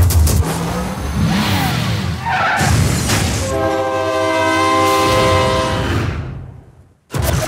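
A train's multi-note horn blows one long chord for about two seconds and fades out. Before it, trailer music with a heavy beat cuts off about half a second in, followed by a rushing noise. A sudden loud hit comes right after a brief silence near the end.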